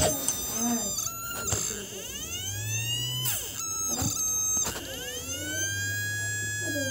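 Hard drive's brushless DC spindle motor whining as it spins the platter up, the pitch rising and then levelling off. The whine falls away steeply about a third of the way in, and a second spin-up follows, with a few sharp clicks in between.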